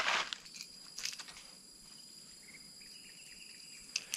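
Steady high-pitched drone of insects in tropical forest. A short rustle comes at the start and a few clicks about a second in.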